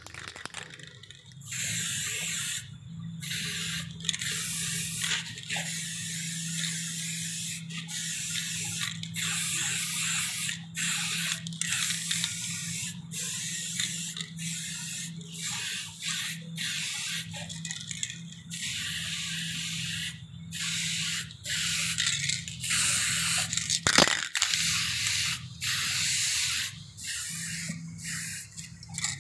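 Aerosol spray-paint can spraying in many short bursts of hiss, each about a second long with brief pauses between. One sharp click late on.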